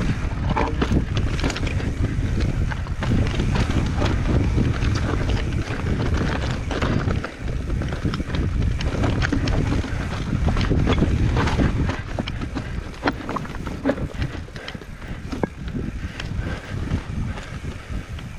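Wind buffeting the microphone of a mountain bike descending fast over rocky ground, with frequent clicks, knocks and rattles from the Commencal Meta Trail 29 full-suspension bike as its tyres hit rocks and steps.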